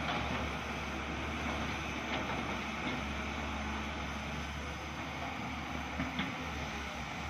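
Diesel engines of two crawler excavators, a JCB and a Tata, running steadily as they dig, heard from a distance, with a few faint knocks from the digging.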